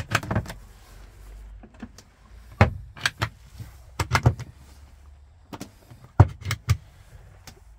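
Wooden campervan roof-locker doors being worked by hand: their round push-button catches clicking and the doors knocking open and shut, in a string of sharp clicks and knocks that come in small clusters every second or so.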